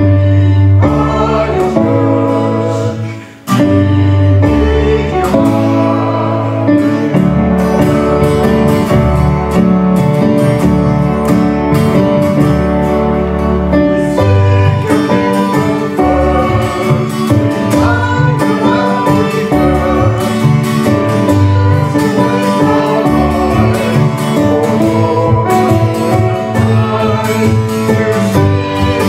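Worship band performing a congregational song: voices singing the melody over acoustic guitar and a stage piano, with a short drop in level about three and a half seconds in, between sung lines.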